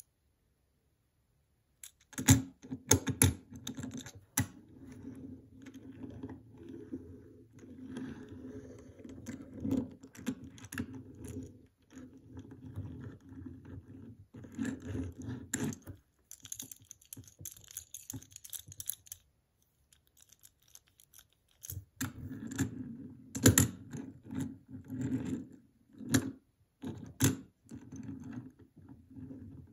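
A small Hot Wheels die-cast toy car rolling back and forth under a finger on a hard tabletop. Its wheels give a low rumble, broken by sharp clicks and knocks as it is set down and pushed. The rolling comes in two spells with a pause in the middle.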